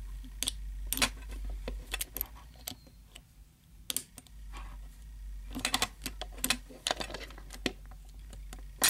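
Small, irregular metal clicks and taps of a hook pick working against the dial wheels inside a Master 175 combination padlock while the shackle is held under tension. The clicks bunch together about two-thirds of the way through, and a sharp, louder click comes right at the end.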